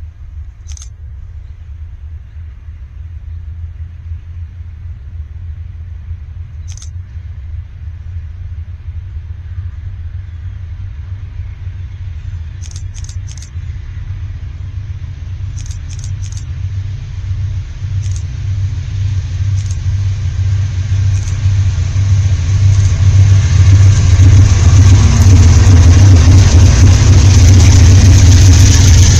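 Diesel freight locomotives approaching and passing close by: a low engine rumble that builds steadily and peaks near the end, when the noise of freight car wheels on the rails joins in. Short high-pitched chirps come and go throughout, some in quick groups of three.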